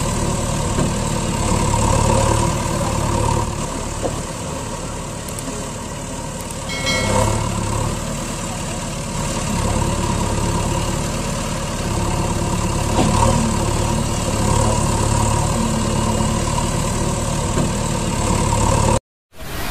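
Steady sound of a truck engine idling, with a short higher-pitched tone about seven seconds in; it cuts off abruptly just before the end.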